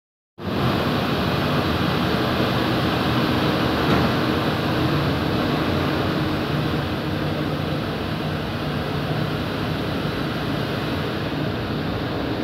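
Three-layer co-extrusion blown film line running: a steady machine noise with a low hum underneath.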